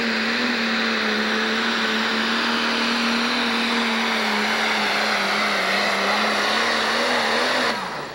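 Turbocharged diesel engine of a red International pro stock pulling tractor running flat out under load down the track, one steady loud note with heavy turbo and exhaust rush. Near the end the note falls away quickly as the throttle comes off at the end of the pull.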